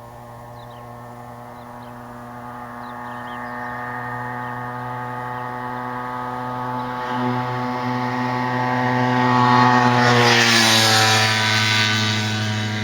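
Tomos APN6 S moped's small two-stroke engine held at steady revs as it approaches, growing steadily louder, then passing about ten seconds in with a drop in pitch and starting to move away.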